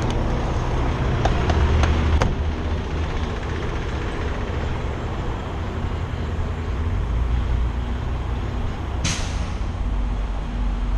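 Kenworth T680 semi truck's diesel engine idling with a steady low rumble. There are a few clicks and knocks in the first two seconds as the cab door is opened, and a short sharp hiss of air about nine seconds in.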